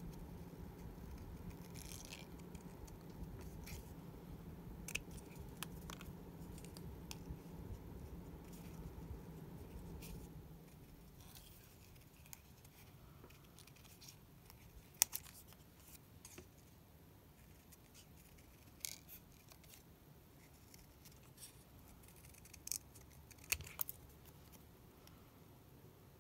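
Small orange-handled craft scissors snipping around a small paper image: scattered short, sharp snips with pauses between. A low steady hum underneath stops about ten seconds in.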